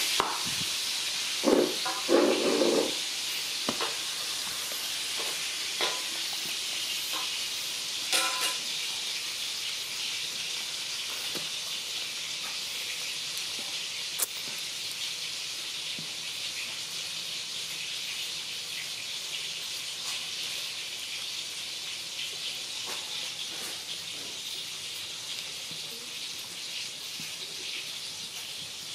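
A steady high hiss, slowly fading, with a few short louder sounds in the first three seconds and another about eight seconds in.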